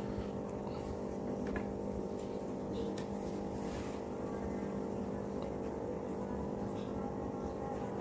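A steady electrical hum made of several held tones, with a few faint light clicks over it.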